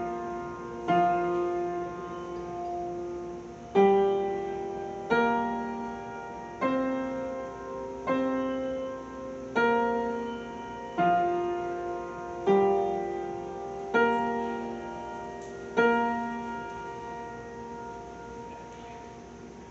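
Piano playing a slow melody in full chords, one chord struck about every one and a half seconds and left to ring; the last chord, a few seconds before the end, fades away. The tune is a by-ear arrangement of the siren melody sounded daily at 2 p.m. at Tenrikyo Church Headquarters.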